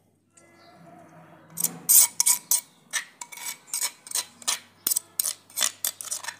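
Steel spoon scraping mint chutney out of a clay pot, a quick run of short scrapes about three a second, starting about a second and a half in.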